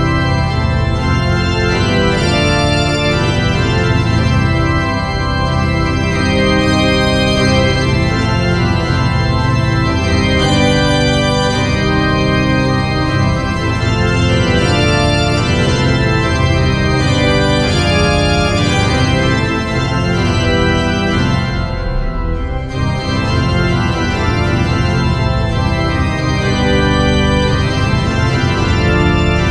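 Instrumental background music of sustained, organ-like chords over a continuous low bass. The upper notes drop out briefly about three quarters of the way through.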